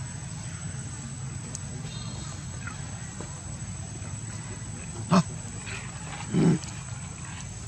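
Two short low grunt-like monkey calls about a second apart, the first very brief and the second a little longer, over a steady low background hum.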